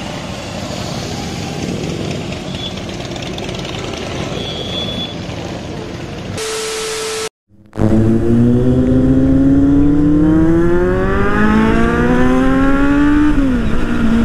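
Idling motorcycles and street traffic, then, after a brief cut, a motorcycle engine accelerating hard, its pitch climbing for about five seconds and dropping sharply at a gear change near the end.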